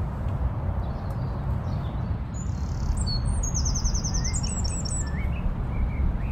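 Small birds chirping and singing in short phrases, with a high run of quick repeated notes a couple of seconds in and brief chirps later, over a constant low rumble.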